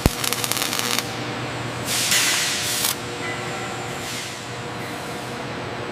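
Workshop machinery noise: a rapid rattling in the first second, then a burst of hissing about two seconds in, over a steady mechanical hum.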